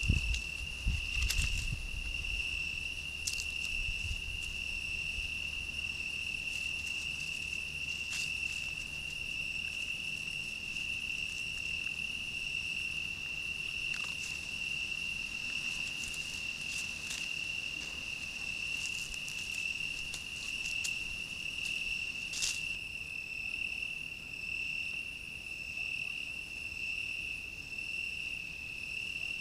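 Crickets trilling continuously at one steady high pitch, with a few low thumps in the first few seconds and scattered faint clicks.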